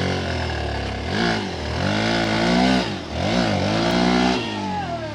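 Hero Xpulse 200's single-cylinder four-stroke engine revving hard in three surges, the pitch climbing and falling each time before dropping away near the end, as the bike fights up a steep dirt climb that it does not make.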